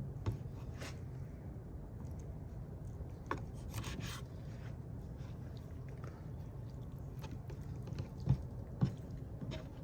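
Knife trimming raw chicken on a cutting board: scattered scrapes and soft knocks over a low steady hum, with a few sharper knocks near the end.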